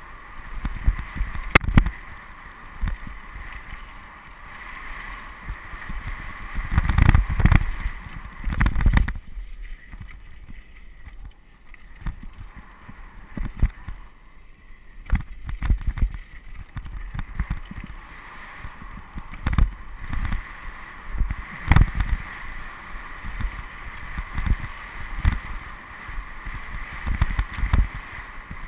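Mountain bike descending a rocky dirt singletrack: tyres rolling over dirt with frequent knocks and rattles as the bike jolts over rocks and bumps, heaviest about seven to nine seconds in, easing off for a few seconds after.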